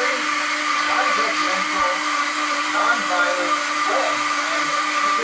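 A small electric blower motor running steadily with a constant whirring hum, and faint voices mumbling underneath.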